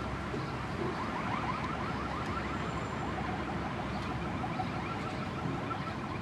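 A distant car alarm warbling rapidly, about eight short sweeps a second, fading after about five seconds, over a steady low rumble.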